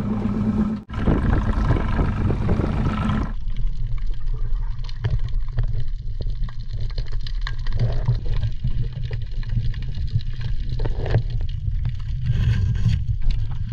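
A motorboat's engine running with wind and water noise for about the first three seconds. Then comes muffled sound from a camera under water: a low rumble of moving water with scattered clicks and pops.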